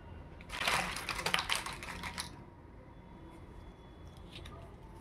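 Plastic crackling and rapid clicking from toy pieces or their packaging being handled, a dense burst lasting about two seconds, followed by a few faint clicks.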